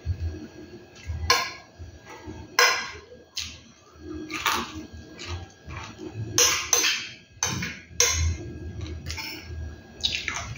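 Eating sounds: a spoon scraping and clinking on a plate of rice, and chewing fried chicken, in a dozen short irregular strokes.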